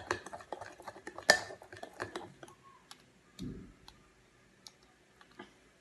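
A utensil clicking and tapping against a container while the slime mixture is stirred: rapid clicks for the first couple of seconds, then scattered single taps, with one dull thump about three and a half seconds in.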